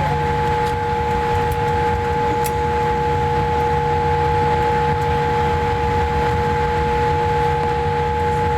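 Cabin noise of a Boeing 787-8 airliner taxiing after landing: a steady low rumble with two steady whining tones above it, the lower whine the stronger.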